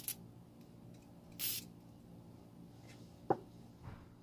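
Aerosol spray can hissing in short bursts into the opened gear side of a baitcasting reel, lubricating it: a quick spurt at the start and a longer one of about a third of a second about a second and a half in. A sharp click follows a little after three seconds, then a softer knock near the end.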